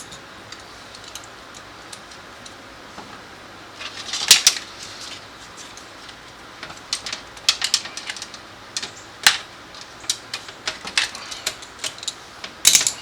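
Irregular sharp clicks and clatter of small tools against plastic and metal parts as the door lock actuator's linkage rod clips are pried and worked loose, with a denser burst of clatter about four seconds in and another near the end.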